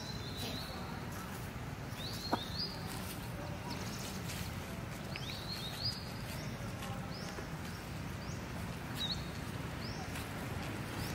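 High chirping calls, each a quick upward sweep, repeated in short groups every second or two over a steady low outdoor rumble. A single sharp click comes a little after two seconds in.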